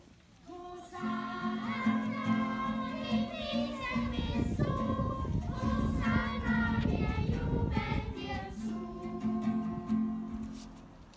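A group of voices singing a short hymn over a steady, held accompanying note, fading out near the end.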